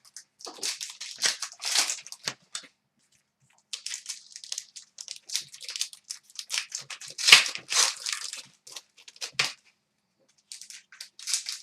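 Packaging of hockey card boxes being torn open and wrappers crinkled: a run of short tearing, rustling noises, broken by two brief pauses.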